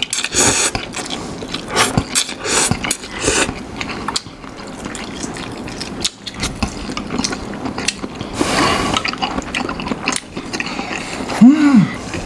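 Close-miked mukbang eating sounds: instant noodles slurped and prawns chewed, with many wet mouth clicks and smacks in the first few seconds and a longer slurp about eight seconds in.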